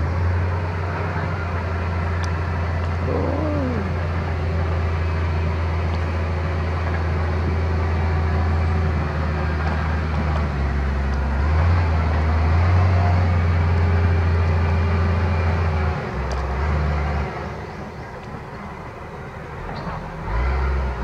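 A loud, steady low rumble that shifts in pitch a few times and drops away for a few seconds near the end, with a short falling squeal about three seconds in.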